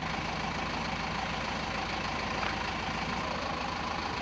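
Bus engine idling steadily.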